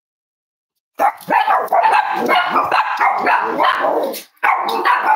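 Several Cavalier King Charles spaniels barking over one another in a dense, loud run of barks that cuts in abruptly about a second in, with a brief break near the end.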